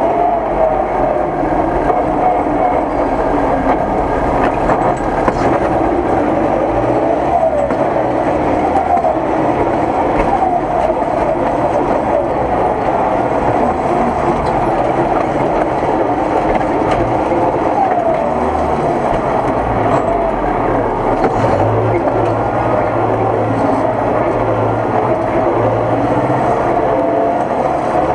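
Diesel tractor engine heard from inside the cab, a steady loud drone whose pitch rises and falls every few seconds as the tractor is driven and manoeuvred.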